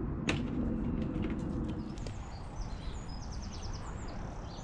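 Small birds chirping, with a quick run of about six evenly spaced notes a little past the middle, over a low steady outdoor rumble that eases about halfway through. A single sharp click sounds near the start.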